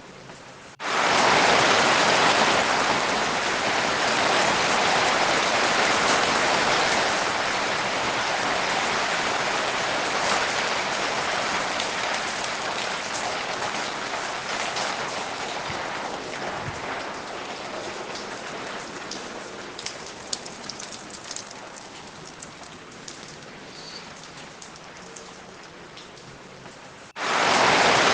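Rain falling steadily in a constant hiss, heaviest at first and gradually easing, with single drops ticking out more distinctly in the second half. The level jumps up suddenly about a second in and drops back just as suddenly shortly before the end, at the joins of a looped recording.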